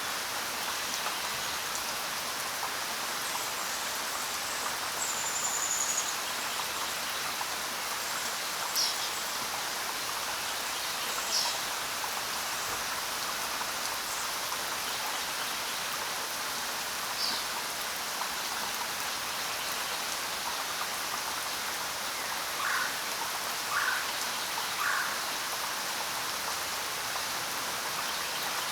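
Steady rain, an even hiss of falling drops, with a few scattered short bird chirps over it and three brief calls close together near the end.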